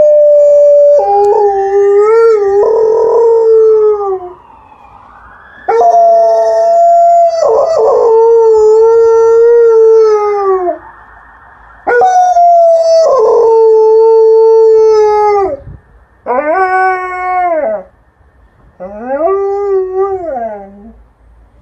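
Alaskan Malamute howling in response to an ambulance siren. There are three long howls of four to five seconds each, then two shorter howls that rise and fall in pitch.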